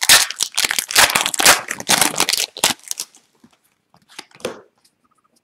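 Foil wrapper of an Upper Deck hockey card pack being torn open and crinkled by hand: a quick run of crackling tears for about three seconds, then only a few faint rustles.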